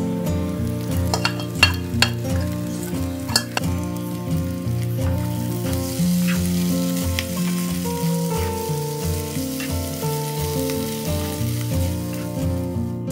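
Spiced clams and onions sizzling in a non-stick pan as a spatula stirs them. There are a few sharp clicks of the spatula against the pan in the first few seconds, and the sizzle grows louder about halfway through.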